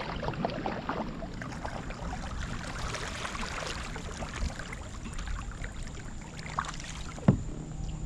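Small boat moving across a pond: water splashing and dripping with scattered light knocks, and one sharp knock about seven seconds in.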